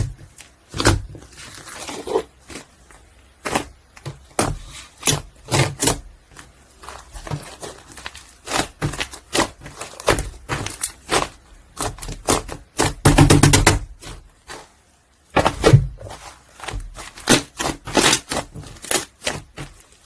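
Foam ball slime (floam) being squeezed and pressed by hand, giving irregular sharp crackling pops and clicks, with a dense burst of crackling about two-thirds of the way through.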